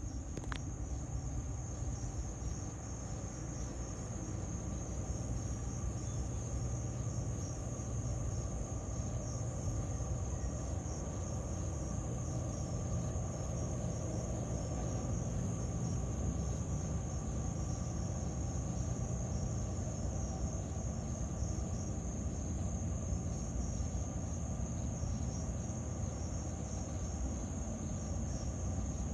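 Steady high-pitched chorus of night insects, with a low rumble underneath that slowly grows louder: the diesel locomotives of an approaching freight train still in the distance.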